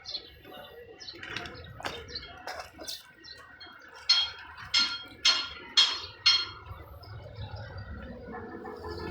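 Five sharp, ringing knocks about half a second apart, coming near the middle among scattered lighter clatter.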